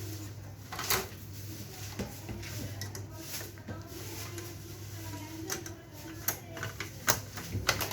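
Plastic parts of a laser printer being handled and fitted back together by hand: scattered clicks and knocks, a sharper one about a second in and several more near the end, over a steady low hum.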